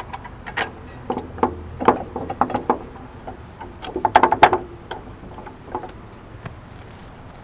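Metal clinks and knocks of a strut fork being worked by hand onto the base of a front shock absorber, in irregular clusters, the loudest about four seconds in.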